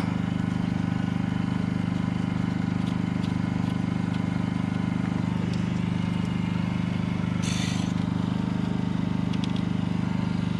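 An engine running steadily with a low, even drone. A short hiss comes about seven and a half seconds in, and a few faint clicks near the end.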